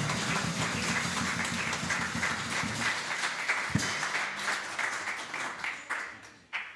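Audience applauding, a dense patter of many hands clapping that thins and fades out near the end.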